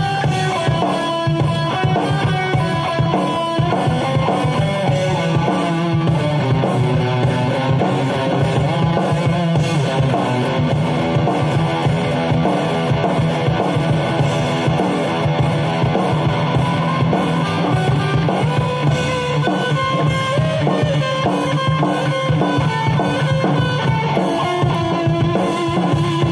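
Kramer Assault 220 FR electric guitar playing a run of quickly changing single notes over a rock drum beat.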